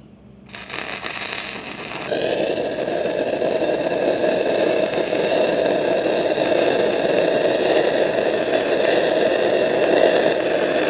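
A 6010 stick electrode burning in the root pass of a steel pipe joint: a steady, loud crackling hiss from the welding arc, with the amperage turned up a little to push the bead through a tight root gap. The crackle starts about half a second in and grows stronger about two seconds in.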